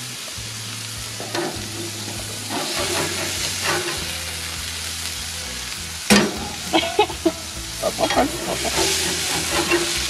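Burger patties sizzling on a hot grill grate. About six seconds in there is a sharp clank, followed by a run of short clicks and scrapes.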